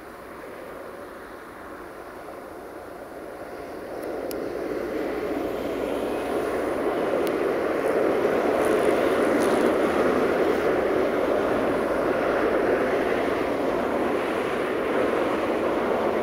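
Freight train wagons rolling past on the rails: a steady rumble that grows louder about four seconds in and then holds, with a few faint high clicks.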